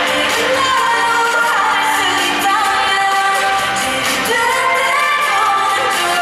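K-pop group performing live through an arena sound system: female vocals singing over a loud backing track.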